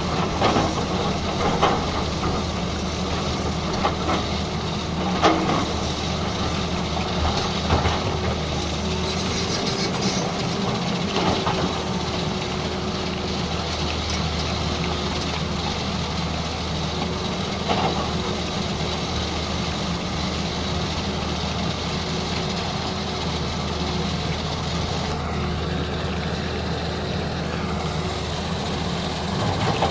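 Excavator's diesel engine running steadily, with a few sharp knocks and clanks of working metal in the first half.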